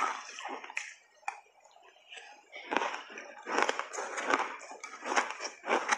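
Close-miked chewing of a mouthful of purple shaved ice coated in matcha and milk powder: irregular crisp crunches, a short lull about a second in, then dense crunching again from about three seconds in.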